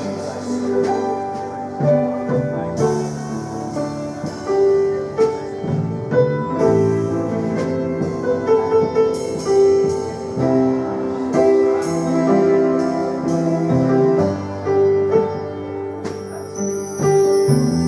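Instrumental worship music on a keyboard: held chords under a slow melody of single notes, with no singing.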